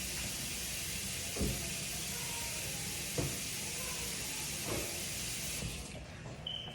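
Tap water running steadily while a duck is rinsed in the sink, with a few soft knocks; the water stops near the end.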